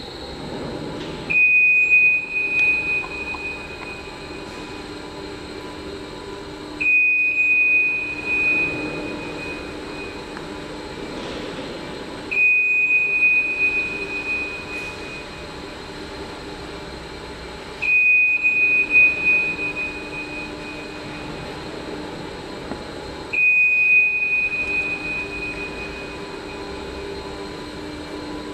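Motorised mobile pallet-racking carriages running along their floor rails with a steady low hum. A high warning tone sounds five times, about every five and a half seconds, each lasting a few seconds and fading. This is the movement alarm of the moving racks.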